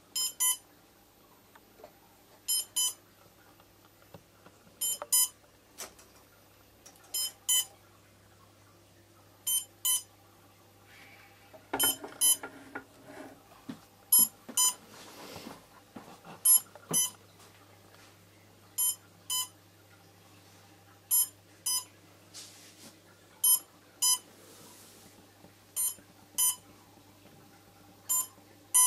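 Short electronic beeps from the powered-up quadcopter's electronics, coming in pairs about every two seconds, over a faint steady hum. A brief clatter about twelve seconds in.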